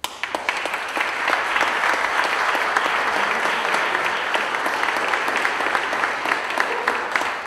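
Audience applauding: many hands clapping at once, starting suddenly and holding steady.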